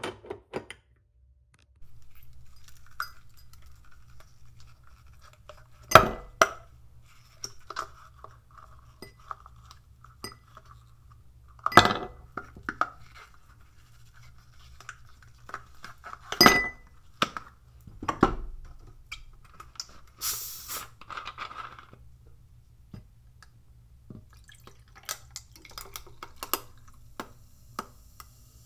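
Glass and plastic kitchenware being handled: four loud, sharp knocks and clinks spread through the stretch, a short hiss about two-thirds of the way in, and lighter clinks near the end. The sounds come from a glass food-storage container with a snap-on lid, a plastic ice cube tray and ice in a drinking glass.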